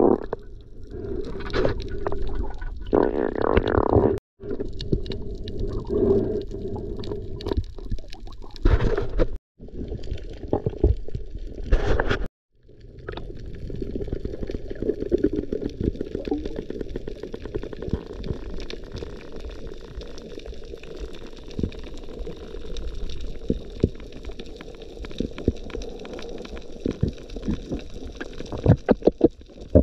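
Underwater sound through a camera housing: muffled water noise with a dense crackle of small clicks. It breaks off abruptly three times in the first half, then runs on more steadily.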